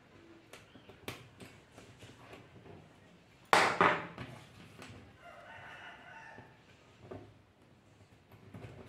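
A long animal call in the background: a loud, harsh start about three and a half seconds in, then a pitched, wavering tail lasting about two seconds. Light clicks of small plastic microswitch parts being fitted together by hand come early on.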